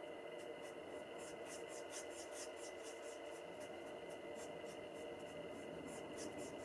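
Stampin' Blends alcohol marker nib rubbing over cardstock in quick, repeated short strokes, a few a second, as a bird image is coloured in.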